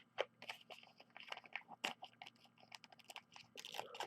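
Faint crinkling and clicking of baseball trading cards and a pack wrapper being handled, a scatter of small, irregular crackles.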